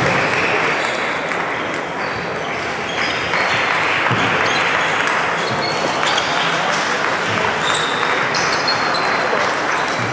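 Table tennis balls clicking sharply and irregularly off bats and the table during doubles rallies, over a steady hubbub of voices in a large sports hall.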